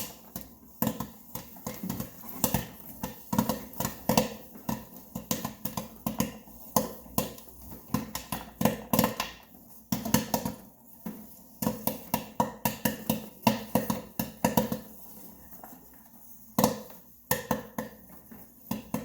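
Popcorn kernels popping in a home popcorn maker: quick, irregular pops several a second that thin out to scattered pops near the end, as the batch nears done.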